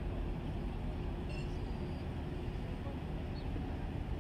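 Passenger ferry's engine running steadily under way, a low even drone heard from on board.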